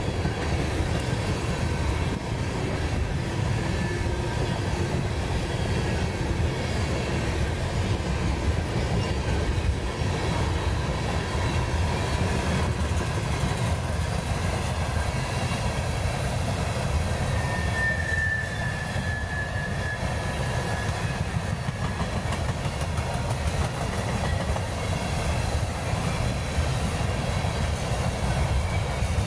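Freight train of tank cars rolling past, steel wheels on rail making a steady low noise with faint wheel squeal tones, and a brief higher squeal about eighteen seconds in.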